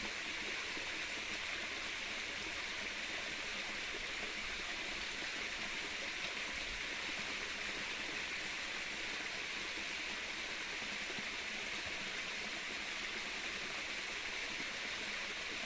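Steady rushing of flowing water in a small river, even and unbroken.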